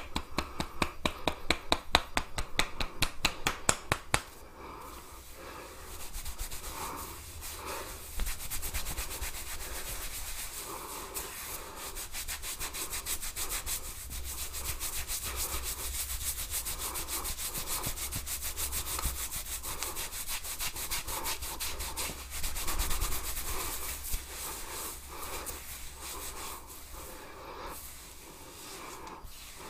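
Head massage: fingers rubbing over a person's scalp and hair with a steady, scratchy rubbing that swells and fades. It opens with a fast, even run of sharp clicks, several a second, that stops about four seconds in.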